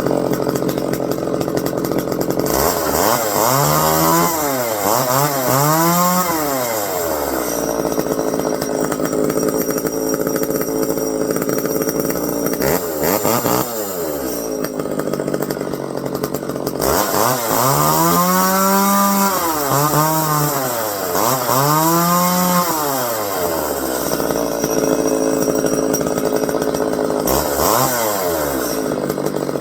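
Echo 290EVL two-stroke chainsaw running at idle and revved up and back down about six times, mostly in pairs. The owner says it runs alright but may need a carb tune.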